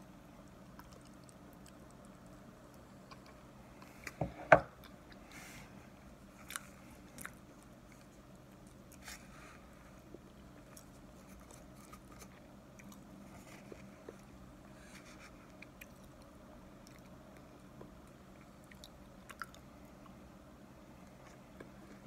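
Someone chewing and crunching a mouthful of a powdered-and-chunked starch mixture, with a utensil scraping and clicking in a plastic tub. There are scattered small clicks throughout, and a sharp double knock about four seconds in is the loudest sound.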